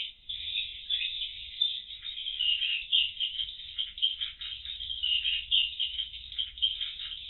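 Dense, continuous twittering and chirping of edible-nest swiftlets, many calls overlapping, sounding thin through a CCTV microphone.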